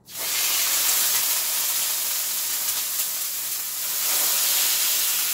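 Marinated chicken thighs going into a hot oiled skillet and sizzling: a sudden loud hiss as the meat hits the oil, then a steady sizzle as it sears over medium heat.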